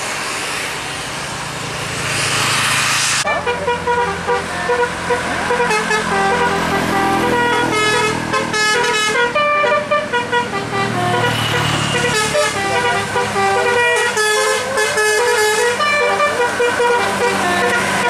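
Tour bus telolet horn playing a fast melody of stepped multi-tone notes over the bus's running diesel engine. It starts about three seconds in, after a rushing noise.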